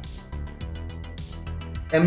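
Instrumental background music with a steady low bass.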